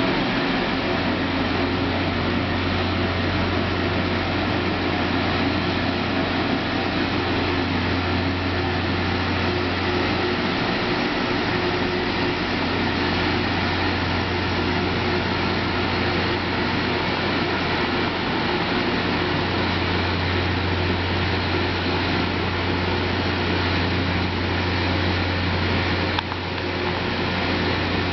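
Rail grinding train at work: a steady, even grinding noise with a low drone underneath, unbroken throughout.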